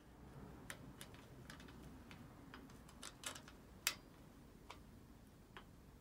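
Faint, irregular small clicks and taps of a plastic bicycle rear light being handled and fitted onto a steel luggage rack, with one sharper click nearly four seconds in.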